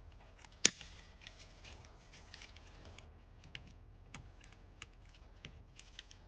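Scattered light clicks and taps of hands and a cutter working at the plastic wiring plug housing and its cable tie, with one sharper click about two-thirds of a second in.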